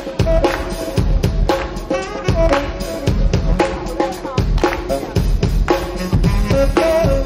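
Live drum kit playing a Latin hip hop groove with kick drum, snare and rimshots, under sustained melodic notes.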